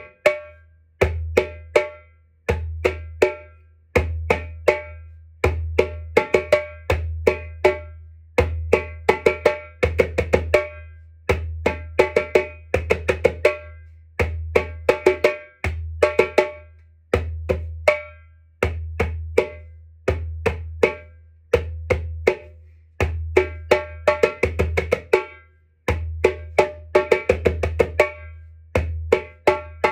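Djembe played with bare hands: a repeating rhythm of sharp strokes, the pattern coming round about every second and a half, over a low bass note that sounds under each bar.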